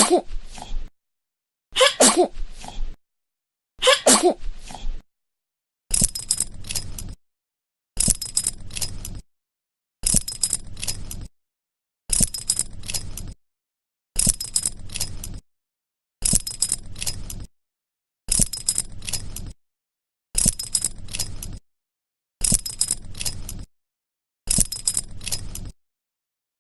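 A baby sneezing three times, about two seconds apart. From about six seconds in, a car seat belt buckle clicking and clattering, a short burst of metallic clicks repeated every two seconds or so, ten times.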